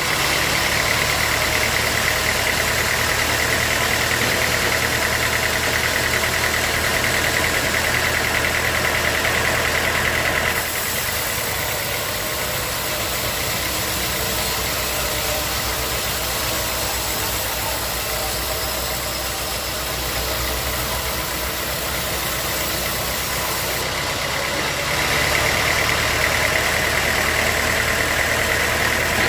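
Sawmill machinery running steadily while processing teak. Its tone shifts about ten seconds in and shifts back near the end.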